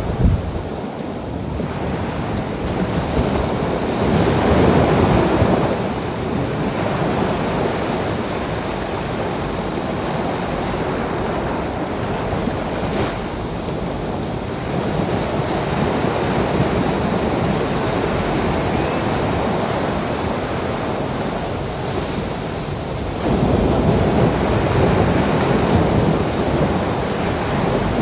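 Ocean surf: waves washing in continuously, with wind. A louder wave breaks about four seconds in, and another swells up about 23 seconds in and carries on.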